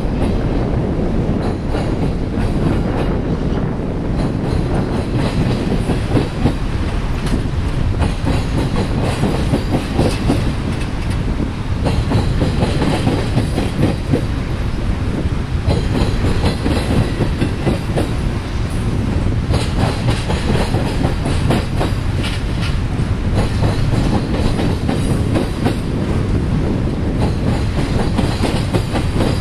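Union Pacific double-stack intermodal train's container well cars rolling past: steady noise of steel wheels on rail, with repeated clacks as the wheels cross rail joints.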